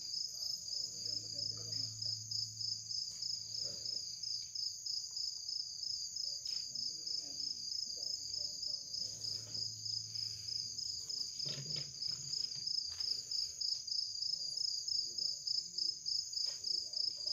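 Night insects, crickets, chirping in a steady, fast-pulsing high trill. A faint low hum comes and goes twice, with a few faint knocks.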